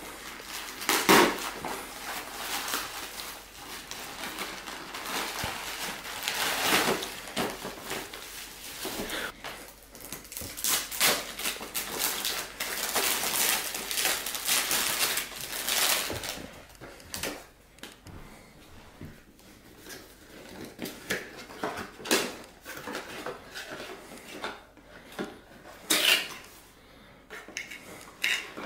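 Plastic mailer bag and bubble wrap crinkling and rustling as a package is unwrapped by hand, dense and busy for about the first fifteen seconds, then sparser rustles and light taps on a cardboard box, with one sharp crinkle near the end.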